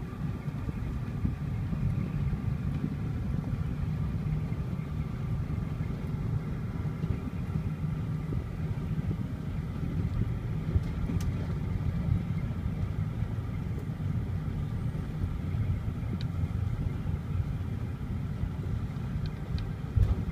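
Steady low driving rumble of engine and road noise heard inside a pickup truck's cab while under way, with a few faint ticks.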